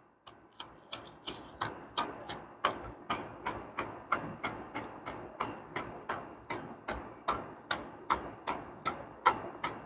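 Spark wheel of a Zippo fire-starting multi-tool being struck over and over, a sharp rasping click about three times a second. It throws only a weak spark at the tinder.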